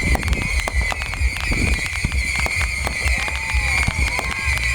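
Fireworks display going off: a dense run of sharp crackles and pops over a continuous low rumble of booms, with a few short sliding whistles about three seconds in.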